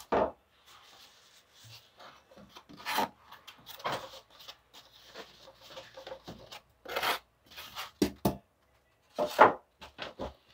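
Thin plastic wrapping rustling and crinkling in irregular bursts as hands handle a PC case inside its plastic bag. The loudest crinkle comes near the end.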